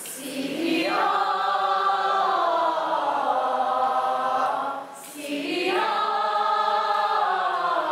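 A mixed group of teenage voices singing a cappella together in two long, sustained phrases, with a short break about five seconds in.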